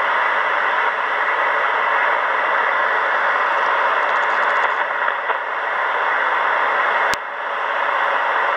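A Kenwood R-2000 shortwave receiver's speaker gives a steady hiss of static between transmissions. About seven seconds in there is a sharp click, and the hiss drops a little.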